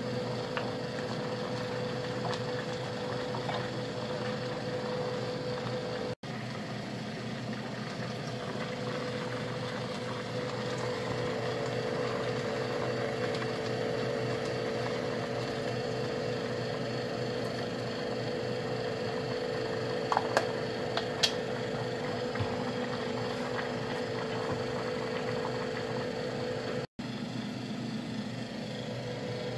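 A steady mechanical hum with a constant mid-pitched tone, and a few light clicks about twenty seconds in.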